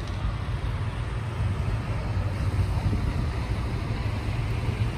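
Heavy vehicles' engines running, a steady low rumble.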